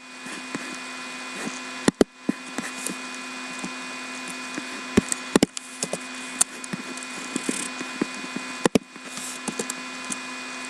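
Scattered clicks and taps from a computer mouse and keyboard, a few sharper ones about two, five and nine seconds in, over a steady electrical hum.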